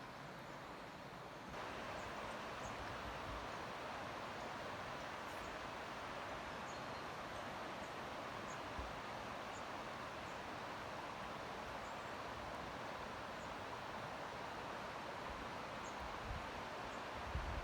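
Steady rush of falling mountain water, a broad even hiss that gets a little louder about a second and a half in.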